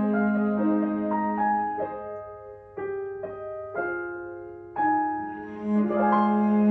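Cello and piano duet: the cello holds a long bowed note over the piano, drops out while the piano plays a few single notes alone, then comes back in near the end.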